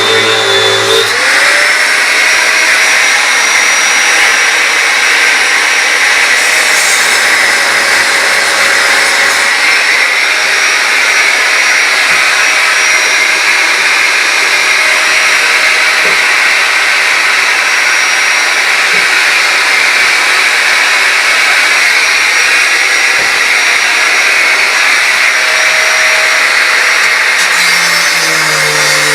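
Angle grinder cutting through the steel door hinge: a steady grinding hiss over the whine of the motor, whose pitch rises about a second in and falls again near the end as the load on the disc changes.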